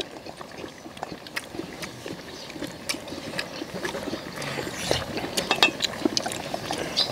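Eating sounds from a shared pot of pork back-bone stew: lips smacking and sucking meat off the bones, with many short clicks of tongs and chopsticks against the metal pan and bowls.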